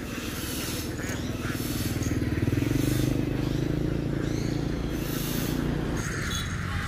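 A motor vehicle engine running, growing louder about two to three seconds in and then holding steady.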